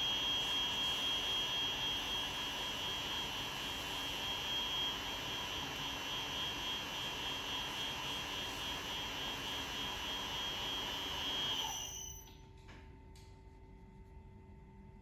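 Foggiato DC 70 double-face fabric splitting machine running with a steady high whine while splitting double-face cashmere; it stops about twelve seconds in, leaving a faint hum.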